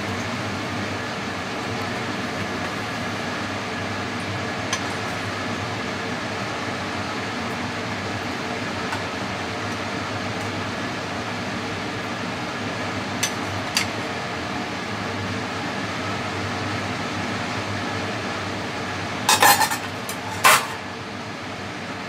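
Steady kitchen background hum, with a few light clinks of utensils against cookware and several close together near the end.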